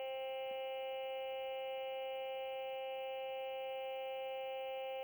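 A 2001 re-release Furby's speaker holding one steady electronic tone with a stack of overtones, unchanging throughout: an audio glitch brought on by disturbing its battery compartment.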